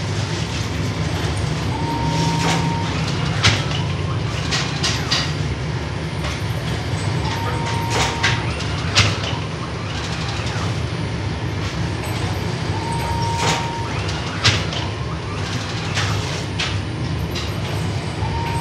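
Steady low rumble of bakery machinery, with a short high beep repeating about every five and a half seconds and scattered knocks and clatter as flatbread is handled and stacked.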